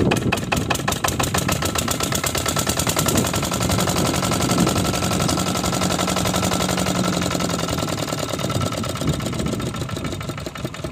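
Kirloskar single-cylinder diesel pumpset engine running after a hand-crank start, a fast even train of exhaust beats. The beats quicken in the middle, then slow and grow quieter near the end.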